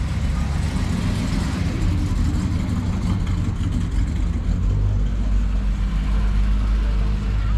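Classic car engines running as the cars drive slowly past, with a steady, deep low rumble: mainly an orange late-1960s Chevrolet Chevelle, followed by a red Fiat 124 Spider convertible.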